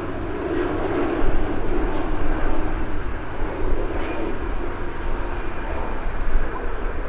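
Boeing 787-9 airliner's jet engines on landing: a steady rushing noise with a low rumble underneath.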